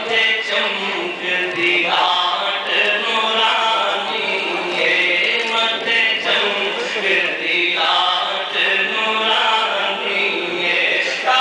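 Man chanting a naat, an Urdu devotional poem in praise of the Prophet, into a microphone in long, melodic, held lines.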